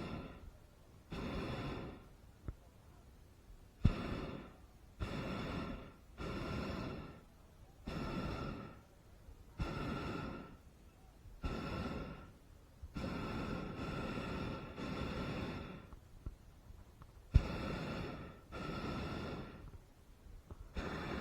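Hot air balloon propane burner fired in a rapid series of short blasts, each about a second long with a brief gap between, a longer blast in the middle, and a sharp click at the start of some.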